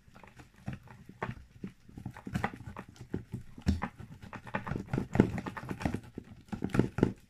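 Cornflour being mixed into a shampoo slime, with irregular knocks and clicks as the mixture is worked.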